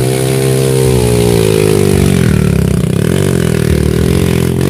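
Trail motorcycle engine revving hard under load as the bike claws up a steep muddy slope. Its pitch wavers, sagging about halfway through, then rising again.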